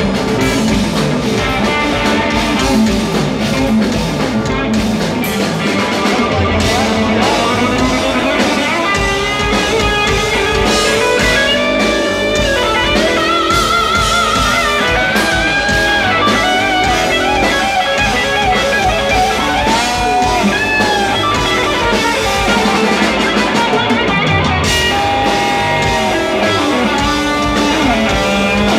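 Live rock band playing at full volume: an electric guitar lead line with bends and vibrato over bass guitar and drum kit.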